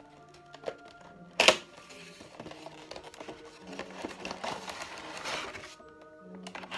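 A cardboard toy box being handled. There is one sharp knock about a second and a half in, then a few seconds of cardboard and plastic rustling as the box flap is opened and the clear plastic tray is slid out. Soft background music plays throughout.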